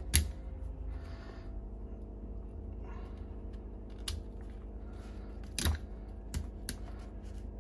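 Sharp metal clicks as a steel circlip is pressed and snapped into place on a 125 cc ATV clutch pack, working against the stiff new clutch springs. About five clicks, the loudest just after the start.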